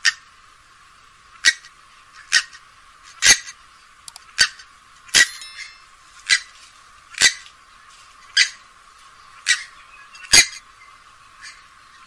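Grey-headed swamphen giving a series of short, sharp call notes, about one a second, a dozen in all.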